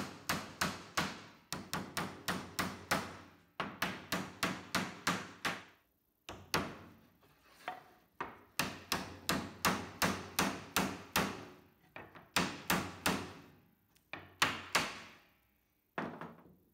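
Metal-headed hammer tapping beech Domino tenons down into their mortises in a hardwood board. Runs of sharp knocks come about five a second, with short pauses between the runs.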